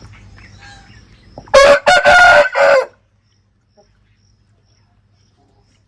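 A rooster crows once, a loud call of several joined syllables lasting about a second and a half, starting about a second and a half in.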